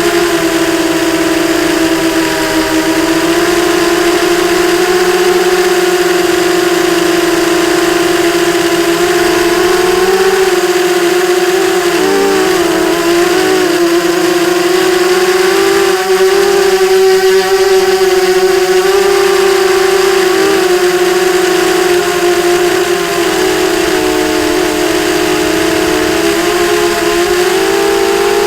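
Brushless motors of a ZMR 250 racing quadcopter with Sunnysky 2207 motors, whining at a fairly steady pitch. The pitch wobbles and dips briefly as the throttle changes.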